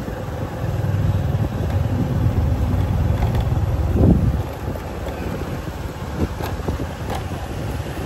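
Motorbike engine and street traffic heard while riding through city streets: a steady low rumble of engines and road noise that swells briefly about four seconds in.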